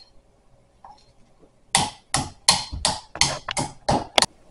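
Pestle pounding horehound hard candies in a mortar to crush them fine: about eight sharp strikes in a steady rhythm, roughly three a second, starting a little under two seconds in.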